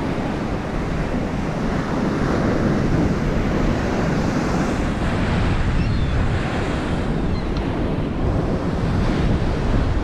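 Ocean surf breaking and washing up the sand, with wind buffeting the microphone.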